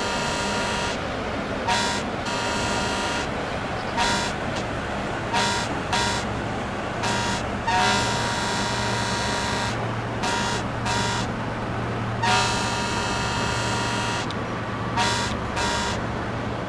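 Ship's horn sounding in a series of blasts, mostly short, with two longer ones of about two seconds, over a steady low hum.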